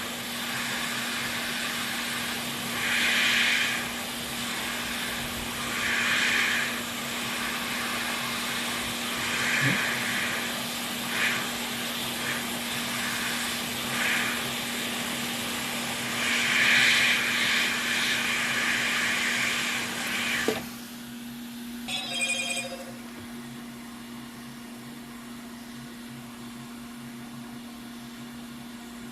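An electronics rework tool's air pump running as a steady hiss, with louder hissing surges every few seconds. It shuts off about two-thirds of the way through, followed a moment later by a short electronic beep. A low steady hum underlies it all.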